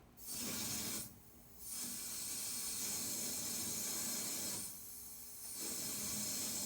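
Water rushing through an opened fill valve into a hot-water heating system to bring its pressure back up: a steady hiss that drops away twice for under a second, as the valve is opened, eased and reopened.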